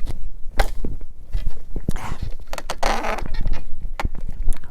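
Knocks, scrapes and rustling from working at a chainsaw whose bar is pinched fast in a cut log, trying to push it free. The chainsaw is not running.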